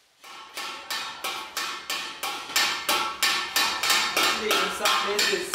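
A hammer driving a steel chasing punch into a copper sheet, in a steady rhythm of about four sharp, ringing metallic blows a second: repoussé shaping of copper by hand.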